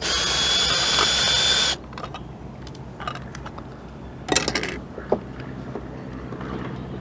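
Cordless drill/driver spinning a screw out of a steel electrical junction box for about a second and a half with a steady motor whine, stopping abruptly. A short metallic rattle and a click follow midway as the box is handled.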